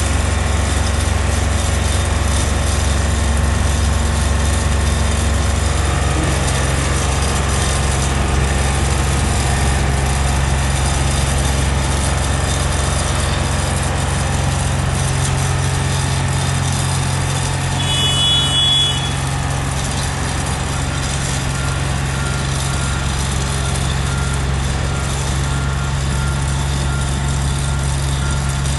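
Diesel engine of a Haulotte H21TX 4x4 boom lift running steadily as the machine drives, its note changing about six seconds in. A short high-pitched tone sounds about two-thirds of the way through, followed by a faint, evenly repeated high beeping.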